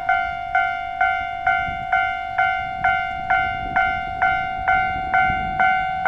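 Japanese railway level-crossing warning alarm ringing steadily, about two electronic ding strikes a second, each a bright two-tone ding that fades before the next.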